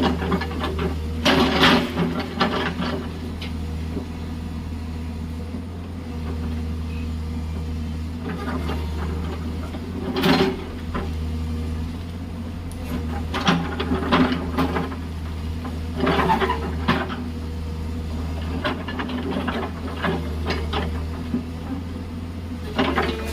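Hydraulic excavator's diesel engine running steadily under load, with scattered short clatters and scrapes as the bucket digs into gravelly hillside soil and rock.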